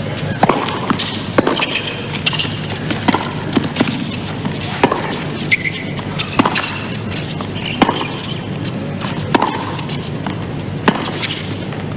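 Tennis ball struck back and forth by racquets in a baseline rally on a hard court: sharp hits about once a second, each a clean pop, over the steady murmur of a stadium crowd.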